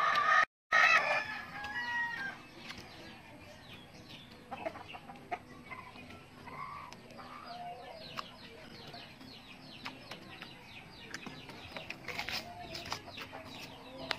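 A rooster crows at the start, a loud call rising in pitch, and chickens cluck now and then afterwards. Short crisp clicks of chewing on a fibrous raw banana stalk run through, more of them in the second half.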